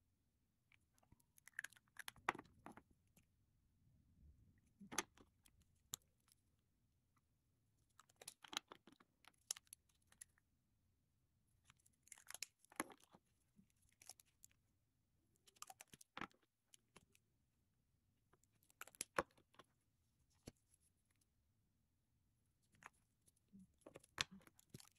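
Faint clicks and light knocks of lipstick tubes being uncapped, recapped and set down on a wooden table, in short clusters every few seconds as one lipstick after another is swatched.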